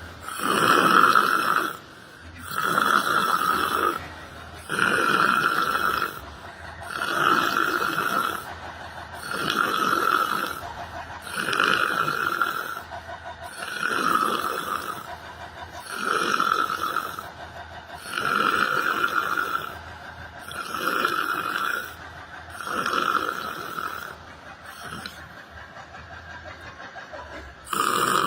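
A person snoring in an even rhythm, about one snore every two seconds, with a pause of a few seconds near the end.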